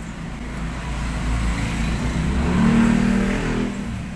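A motor vehicle passes on the road, its engine growing louder to a peak about three seconds in and then fading away.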